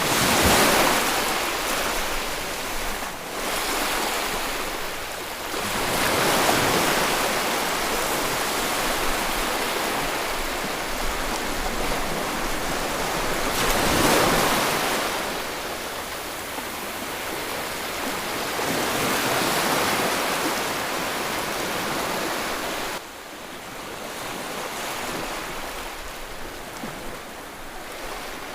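Sea waves breaking and washing onto a beach, each surge swelling and falling every several seconds; the sound drops abruptly to a quieter wash near the end.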